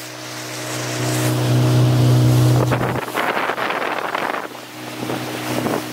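Speedboat engine running steadily at speed, with water rushing past the hull and wind on the microphone. About halfway through the engine hum weakens and a burst of water and wind rush takes over.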